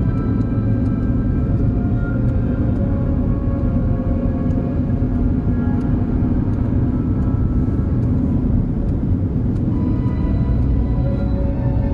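Slow ambient background music: a low sustained drone under held notes, the chord changing about ten seconds in.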